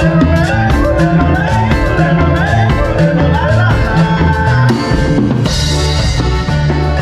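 Cumbia played by a band: a drum kit with bass drum and snare keeping a steady beat under a bass line and a gliding melody, with a brighter burst of high sound about five and a half seconds in.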